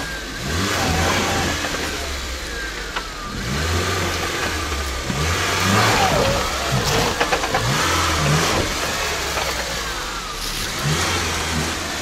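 Lada Niva's four-cylinder engine revving unevenly, rising and falling again and again, as the car crawls along a rutted dirt track. It is loudest about halfway through.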